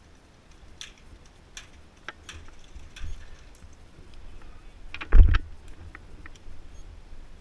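Footsteps and light clicks and rattles of gear as an airsoft player moves up to a concrete bunker, with one heavy thump about five seconds in as he gets in close against it.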